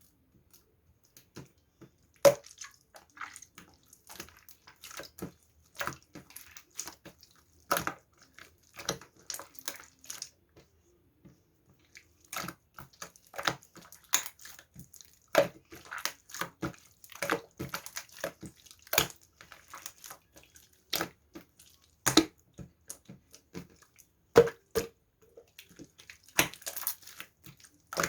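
Irregular wet clicks and crackles close to the microphone, like something soft and sticky being squished and handled, with short pauses between bursts.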